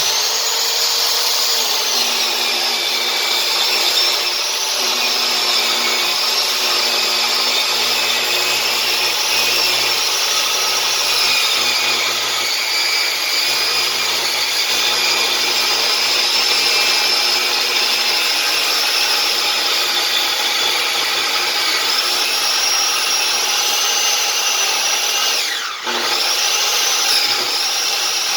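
Circular saw ripping a 2x8 board lengthwise, running loud and steady with a high whine. Near the end the pitch drops briefly as the blade slows, then comes back up.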